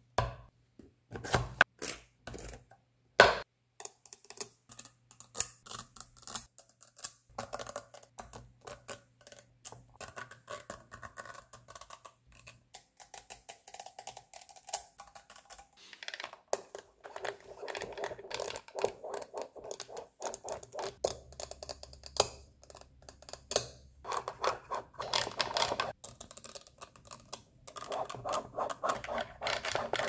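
Magnetic balls clicking and snapping together as they are handled and stacked into a sculpture. A few sharp single clicks come in the first seconds, then dense runs of rattling clicks as chains of balls are laid on.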